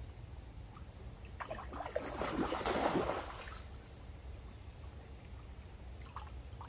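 A hooked pike thrashing and splashing at the surface of the pond, a burst of churning water lasting about two seconds before it dies down.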